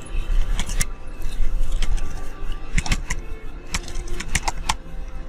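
Short runs of sharp clicks from computer keys, the busiest run about four seconds in, over a steady low hum.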